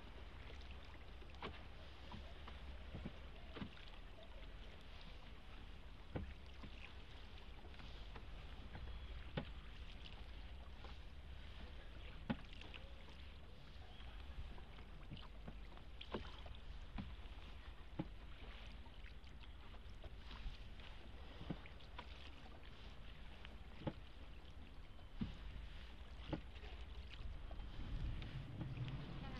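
Small rowing boat gliding through calm canal water, its oar strokes giving short clicks and light splashes about every second or so over a low steady rumble of water. The rumble swells near the end.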